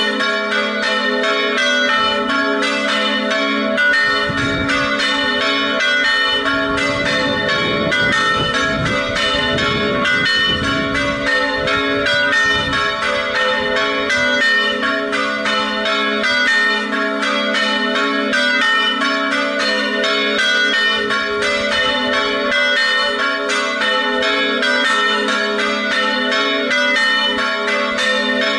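Three church bells tuned A3, B3 and C-sharp4 ringing in a quick, continuous festive peal for the noon ringing.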